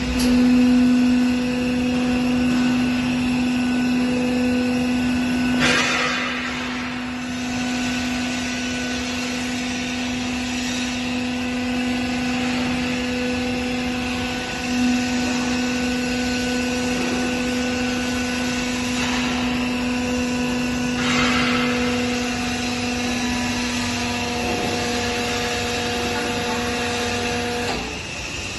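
Hydraulic drum crusher's power unit running with a steady hum while the ram works. There are two short hisses, about six seconds in and again about twenty-one seconds in, and the hum stops just before the end.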